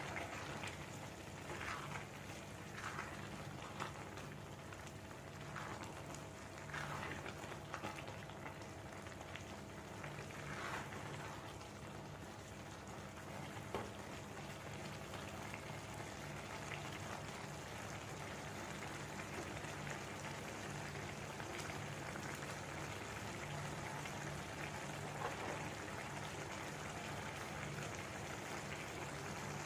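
Pulao cooking in a pot on the stove: a steady hiss with small pops and bubbles, over a low steady hum.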